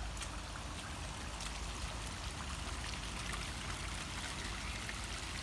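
Small stream of rain runoff trickling and running steadily over a little drop, with a few faint light clicks.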